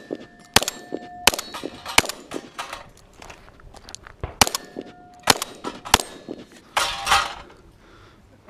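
Shotgun shots at steel targets: about six sharp reports spread over the seconds, some followed by the ringing of a struck steel plate. A longer noisy burst comes about seven seconds in.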